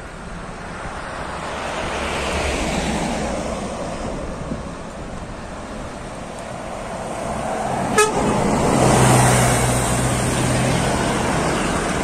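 An intercity bus approaching and passing with traffic noise, then sounding a loud, steady, low horn for about three seconds as it goes by. A sharp click comes just before the horn.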